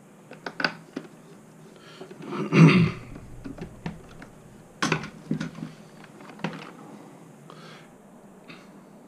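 Small RC crawler parts being handled on a workbench: scattered light clicks and knocks, with a louder rattling clatter about two and a half seconds in.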